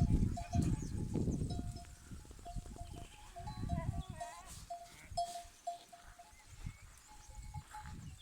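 A goat bell clinking irregularly as the herd moves, with a faint goat call about three and a half seconds in. Low gusts of wind buffet the microphone, strongest in the first two seconds.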